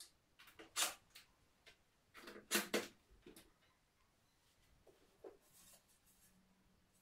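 Hands handling a mirror panel against its plastic wall holders: a few short scrapes and taps, one about a second in, a louder cluster a little later and a small one near the end.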